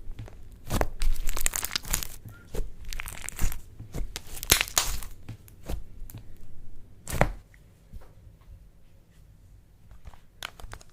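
Slime being squeezed and stretched close to the microphone, making sharp crackles and tearing pops. They come thick and fast for the first few seconds, with one loud crack about seven seconds in, then thin out to scattered soft clicks.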